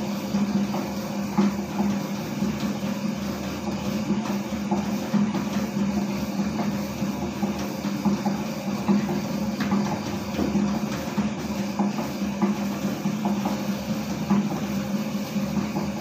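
Homemade stainless-steel dough mixer running with a steady hum while it kneads a ball of donut dough in its steel bowl.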